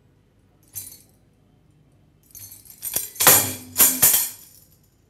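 Metallic jingling, like shaken small bells or jingles. There is one brief shake about a second in, then a louder run of shakes from about two seconds in, loudest just after three seconds, dying away after four.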